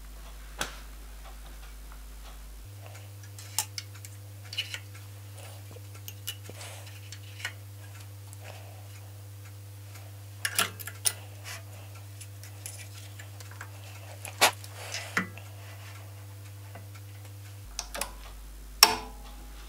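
Scattered light clicks and knocks of metal parts and tools being handled on a drill-press table as an indexer is shifted and clamped down with locking pliers, over a steady low hum; the sharpest knock comes near the end.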